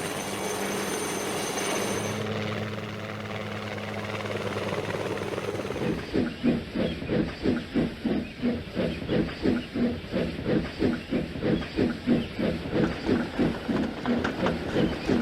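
Steam locomotive hissing steam at a standstill, then starting to chuff about six seconds in with an even beat of about three exhaust beats a second.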